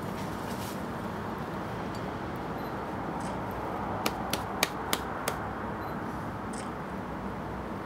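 A lead climber's metal gear clinking: five or so short, sharp clicks in quick succession about four seconds in, over a steady background hiss.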